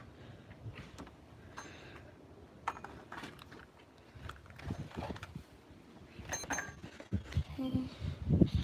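Scattered light clicks and knocks, then a run of heavier low thumps near the end, footsteps on concrete.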